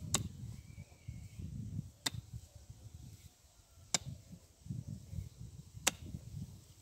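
Hand digging tool striking hard clay soil four times, about two seconds apart, each blow a sharp clack.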